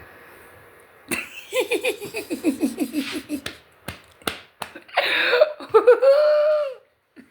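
A woman laughing hard: a quick run of "ha-ha" pulses falling in pitch, a few sharp smacks, then a long high-pitched laughing squeal that trails off.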